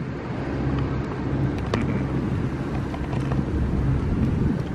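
Motorboat engine running as the boat passes, a steady low hum, with a few light clicks.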